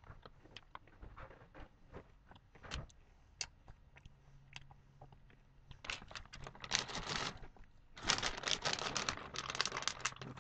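A few faint scattered clicks, then a clear plastic bag of caramel corn crinkling as it is handled. The crinkling comes in two stretches, about six seconds in and again from about eight seconds, as a hand reaches into the bag.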